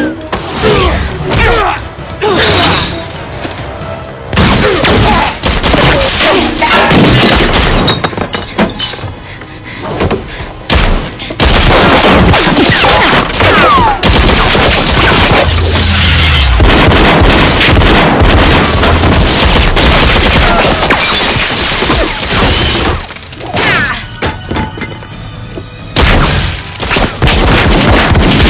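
Action-film fight soundtrack: loud dramatic score music mixed with the punches, thuds and booms of a brawl, full of sudden hits and with a short lull about four-fifths of the way through.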